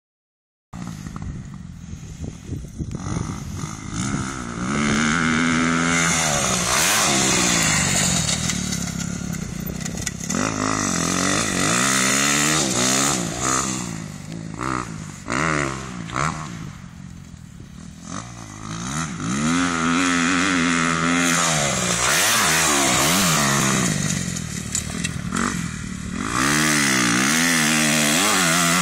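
Kawasaki KX250F single-cylinder four-stroke dirt bike engine revving up and falling back again and again as it is ridden hard around a motocross track, growing loud as it comes close and fading as it moves away, several times over.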